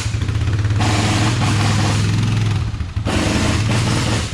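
Car engine running steadily at low speed, with a deep, rapid, even pulsing, as a car is brought slowly into the shop.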